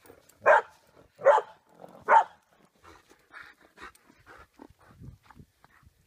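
A dog barking three times, about a second apart, followed by quieter short sounds.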